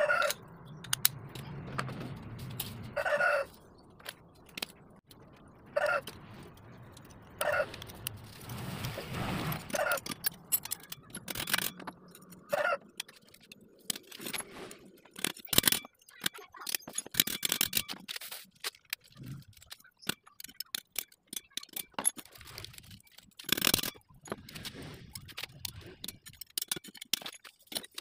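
Metal clinks, clatters and scrapes of hands and a screwdriver working on a scooter's CVT centrifugal clutch assembly, in uneven bursts.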